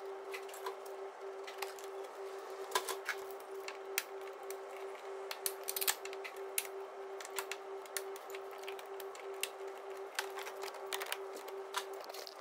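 Scattered clicks and light knocks of hand tools working the plastic under-tray and wheel-arch liner fixings under a car, over a steady hum.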